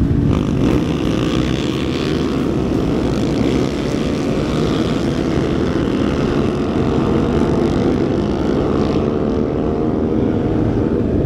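KTM 450 Rally Replica's single-cylinder engine running steadily as the bike rolls along, its level dropping slightly about three and a half seconds in.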